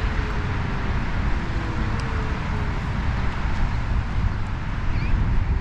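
Steady wind and road rumble while riding a Segway Ninebot Max electric scooter, with a faint whine from its hub motor that slowly rises and falls.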